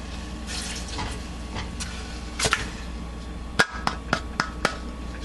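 Condiments being squeezed and poured into a saucepan with soft wet smears of sound, then five quick sharp taps of a kitchen utensil against the saucepan, over a steady low hum.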